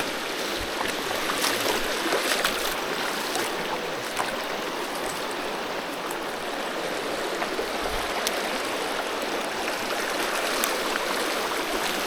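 Creek water flowing steadily over rocks, with a few faint clicks.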